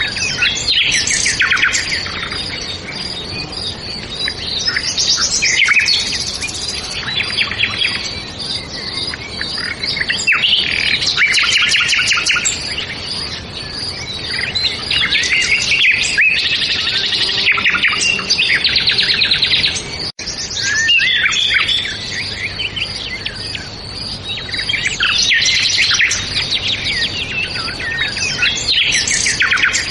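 Several songbirds singing at once: a dense, overlapping chorus of chirps, trills and rapid twittering. It breaks off for an instant about two-thirds of the way through.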